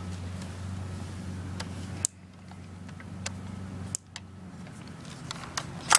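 Sharp plastic-and-metal clicks from a J&G airsoft M4 rifle being handled and its adjustable parts worked, with three loud snaps about two seconds apart and lighter ticks between them.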